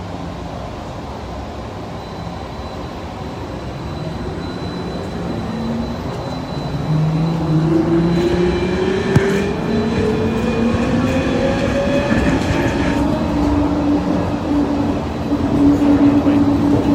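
Airport people-mover tram running, its electric drive whine climbing in pitch and getting louder as the train accelerates from about six seconds in, then holding a steady tone near the end.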